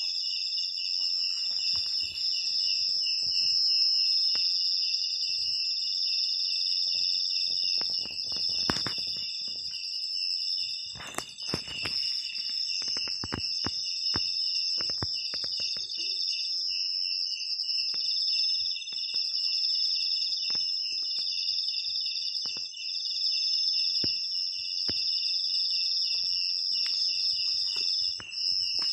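Insects chorusing: several steady high-pitched trills with a fast, evenly pulsing chirp beneath them. Scattered rustling and knocking sounds come and go, busiest about a third of the way in.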